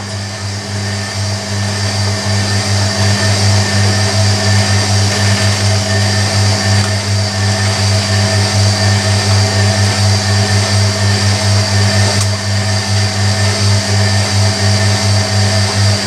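Hoover Electronic A3172 washing machine draining and turning its drum for the first distribution: a steady low drain-pump hum under the noise of the drum and water, the loudness pulsing rapidly with each turn. The load sounds quite unbalanced.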